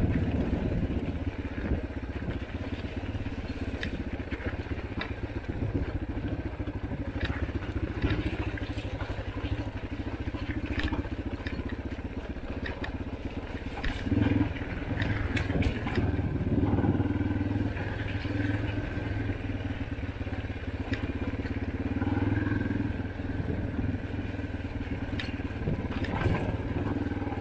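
Dirt bike engine running steadily in a low gear, pulling harder and louder about halfway through and again near the end, with stones and gravel clicking and crunching under the tyres.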